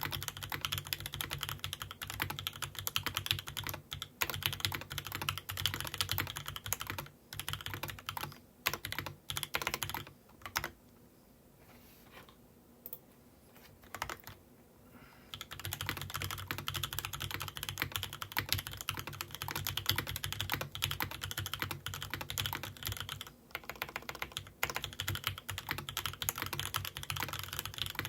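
Typing on a Matrix 2.0add mechanical keyboard with 43Studios Popu switches in a top-mounted aluminium plate and GMK Rainy Day keycaps: rapid, steady keystrokes. For about five seconds near the middle there are only a few scattered keystrokes, then the typing resumes.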